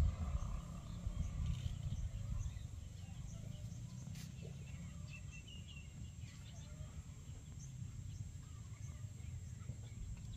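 Outdoor ambience: a low, fluctuating rumble of wind on the microphone, with faint bird chirps, a few of them clustered around the middle.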